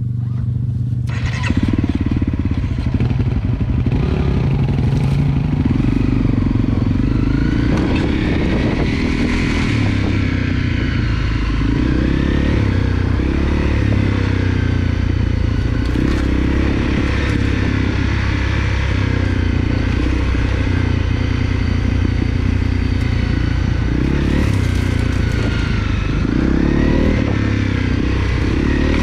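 Honda CRF250L's single-cylinder four-stroke engine running under way, its note rising and falling with the throttle, with wind and road noise over it.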